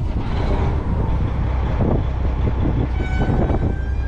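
Wind buffeting the microphone in a loud, gusty low rumble. About three seconds in, a steady tone of several pitches, horn-like, joins it.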